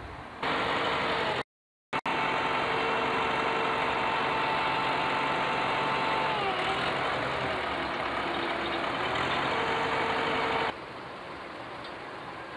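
Tractor front loader's engine running while loading sand into a truck. Its note sags for a few seconds around the middle and then picks up again. The sound cuts in abruptly, drops out briefly about a second and a half in, and cuts off sharply near the end.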